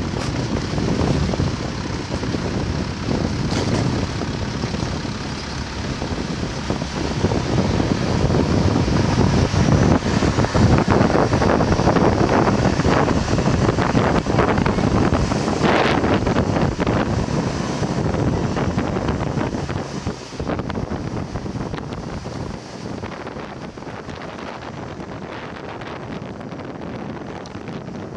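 A boat's engine running while the boat is under way, with wind buffeting the microphone. The sound drops in level about twenty seconds in.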